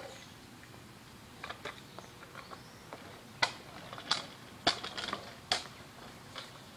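Scattered sharp clicks and taps, uneven in spacing, with a handful of louder ones from about halfway through.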